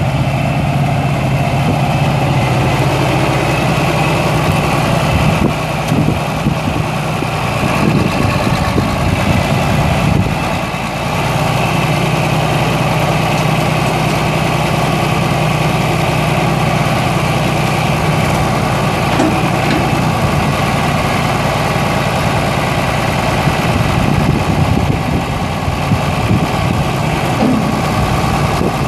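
John Deere 4020's 6.6-litre six-cylinder diesel engine running steadily. Its note wavers and breaks up between about six and eleven seconds in, then settles again.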